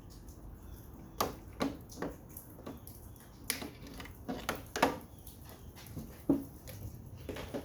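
Irregular clicks and knocks of parts of a wall-mounted air conditioner unit being handled and pried apart during dismantling, starting about a second in.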